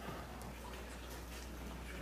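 Quiet room tone of a chess playing hall: a steady low hum with scattered faint clicks and taps.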